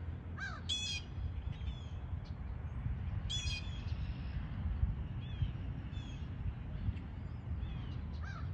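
Wild birds calling: scattered short calls, some arched up-and-down notes and sharper rapid chattering ones about a second in and again past three seconds, over a steady low rumble.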